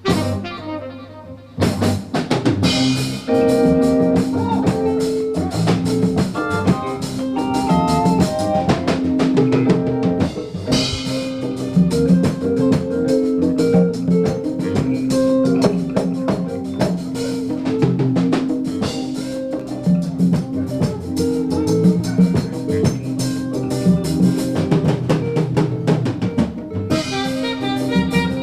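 Live jazz band playing, with the drum kit to the fore: busy drumming over a bass line and a long held note. The music drops away briefly near the start, then comes back in full.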